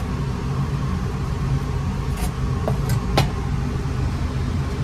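Steady low hum of a running motor, with a few short sharp knocks of a knife against a plastic cutting board as smoked brisket is sliced, two of them close together a little after halfway.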